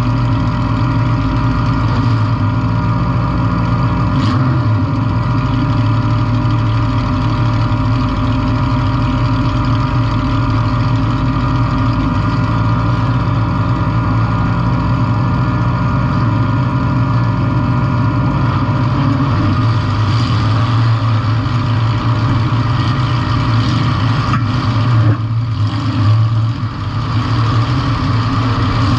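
Demolition-derby compact car's engine running loud and steady, with a single sharp knock about four seconds in.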